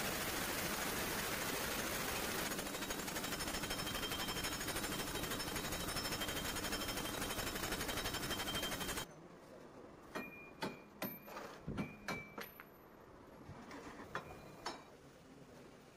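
Impact wrench hammering continuously on a large hub-nut socket on a truck's rear wheel hub, then stopping suddenly about nine seconds in. A run of short metal clinks and knocks follows.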